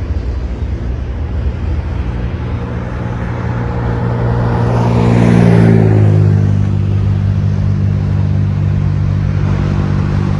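A road vehicle passes by, growing louder to its peak about five to six seconds in, its engine note dropping as it goes past. Under it runs a steady low engine hum.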